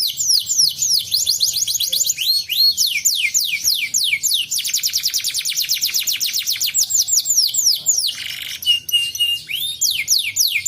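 Domestic canary singing long, fast trills of repeated falling whistled notes, many per second. About eight seconds in, the trill breaks for a short harsh buzz and a held steady whistle, then the fast falling notes resume.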